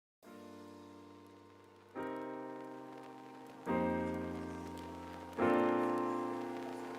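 Background piano music: slow sustained chords, a new one struck about every one and a half to two seconds, each fading away, the chords growing louder through the passage.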